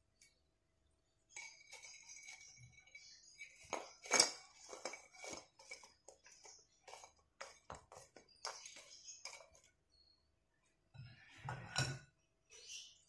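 Clinks and light knocks of a wire-mesh strainer and fried cassava sticks against a steel pan and a ceramic plate as the sticks are tipped out to serve. The clinks come in a quick irregular run, loudest about four seconds in, with a second short cluster near the end.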